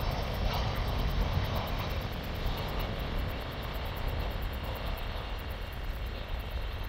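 Airbus A340-300's four CFM56 jet engines running, a steady rumble with a hiss above it that eases off a little in the second half.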